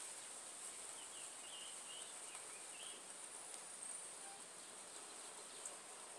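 Faint outdoor ambience: a small bird gives a few short chirps in the first half, over a steady high-pitched hiss.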